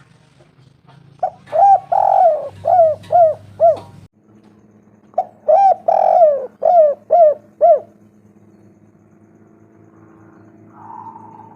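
Spotted dove (tekukur) cooing: two song phrases of about six coo notes each, a second or so apart.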